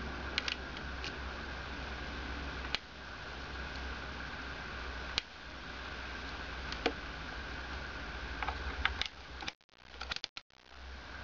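Steady hum with a faint high whine, broken by a few sharp clicks as a test lead is pressed against a multimeter's 20 A jack to measure current. Near the end the sound drops out briefly and a quick cluster of clicks comes as the multimeter's rotary dial is turned.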